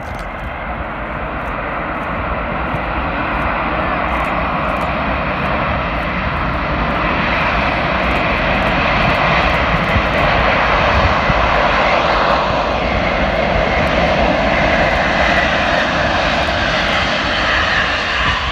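Boeing 747-400's four jet engines running as it lands, growing steadily louder to a peak in the second half, with a brief slide in pitch about midway.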